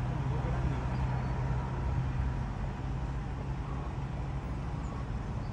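Steady low engine hum, like a vehicle idling, with a constant low drone throughout.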